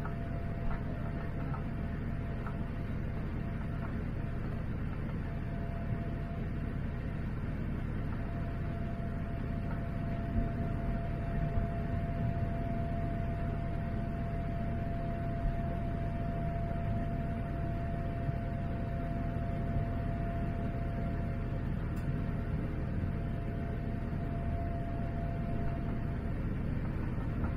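Boeing 787-9 cabin noise in the climb after takeoff, heard from a window seat: a steady low rumble of the engines and airflow. Over it a thin steady tone drops out a few times in the first several seconds, then holds until near the end.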